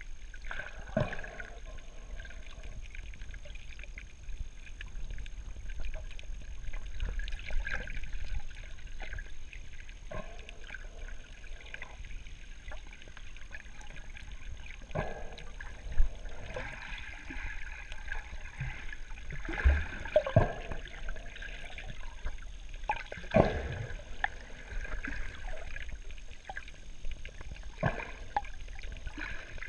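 Muffled underwater sound picked up by a GoPro in its waterproof housing while scuba diving: a steady wash of water noise with stretches of bubbling from the diver's exhaled breath and scattered short clicks and knocks.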